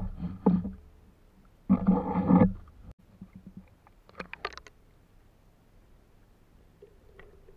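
Muffled underwater rumbling and scraping in two bursts, the second about two seconds in, from a spearfisher handling a speared rabbitfish and a plastic-bottle catch container right by the camera. A quick run of sharp clicks follows about four seconds in.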